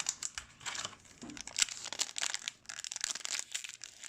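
Plastic trading-card pack wrapper crinkling and being torn open: a rapid run of sharp crackles.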